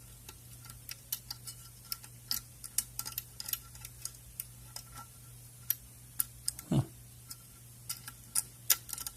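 Irregular small metallic clicks and ticks from a dimple pick pushing and working the pins inside an A&B dimple lock. There is a short downward-sliding sound about two-thirds of the way through.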